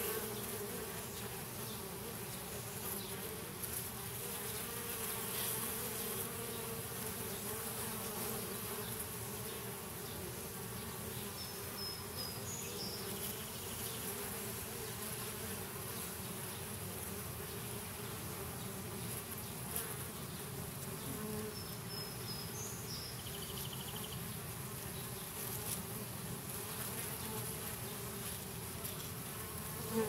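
Honey bees buzzing in a dense, steady hum at the entrance of a hive that is being robbed.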